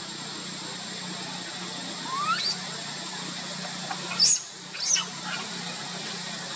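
Young macaque squealing: one call rising steeply in pitch about two seconds in, then two short, sharp high squeals a little over half a second apart near the four- and five-second marks. A steady hum and hiss runs underneath.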